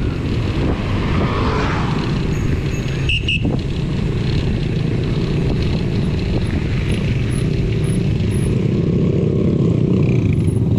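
Steady wind rush and rumble on the microphone of a moving rider, heaviest in the low end. A faint row of short high chirps comes about two-thirds of the way through.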